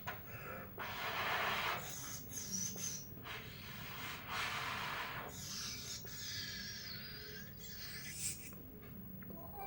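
Mouth-made imitation of a steam locomotive pulling into a station: several breathy hisses of steam, with a few high wavering whistle-like tones in the middle.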